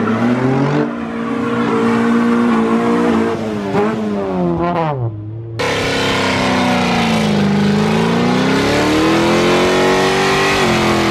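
Car engine revving hard and held at high revs, the pitch sagging and climbing again, as in a burnout. The sound drops away and breaks off suddenly about five seconds in, then picks up again at high revs.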